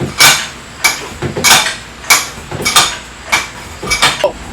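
Steel tool striking metal during wheel removal: a steady run of sharp clanks with a ringing tone, about three every two seconds.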